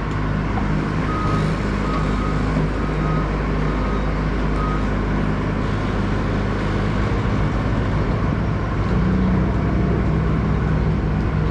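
Skid steer engine running steadily, with a short high beep sounding about five times in the first few seconds. The engine note shifts about two-thirds of the way through.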